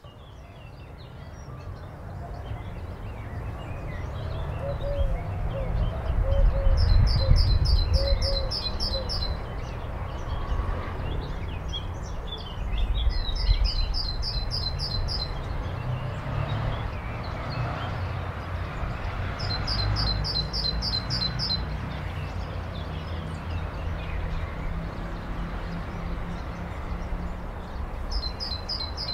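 A bird repeating a fast, high trill about two seconds long, four times, roughly every six seconds, over a low steady rumble.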